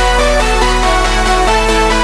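Electronic background music with sustained synth chords over a steady deep bass.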